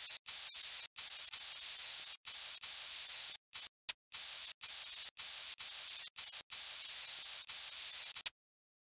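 Kid Pix paint-tool sound effect: a spray-can hiss that plays while a brush stroke is drawn. It comes in about fifteen stretches of up to a second, cutting off each time the stroke pauses, and stops for good near the end.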